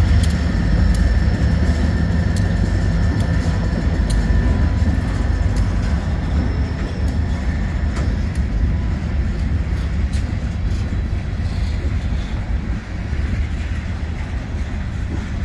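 Freight cars rolling past on the rails: a steady low rumble of steel wheels on track with scattered light clicks, and a faint high steady whine that fades out about halfway through.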